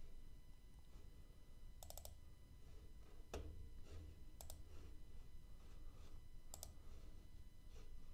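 Computer mouse clicking: a handful of sharp clicks, several of them quick double-clicks, spread a second or so apart over a faint low hum.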